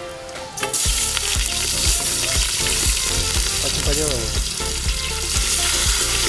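Sliced onions frying in hot oil in an aluminium pot: a steady sizzle that starts about half a second in, as the onions go into the oil.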